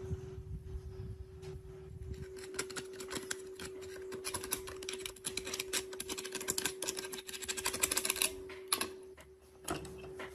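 Rapid, dense clicking and scraping of hand tools working on metal sewing-machine parts. It starts a couple of seconds in and stops near the end, over a steady hum.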